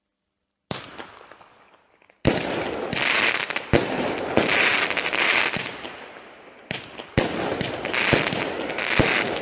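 Small consumer firework barrage cake firing. It opens with one sharp report and a fading tail a moment in, then from about two seconds a rapid run of shots and bursts with dense crackle, surging again near seven seconds.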